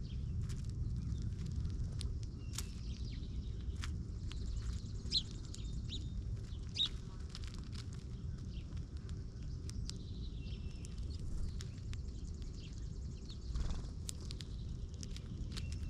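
Small birds at a feeder calling with short chirps, two sharper ones about five and seven seconds in and fainter calls later. Under them run a steady low rumble and scattered light clicks.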